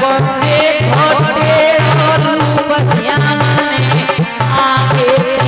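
Devotional bhajan music: a woman singing through a microphone over harmonium, with a steady drum beat and a rattling percussion.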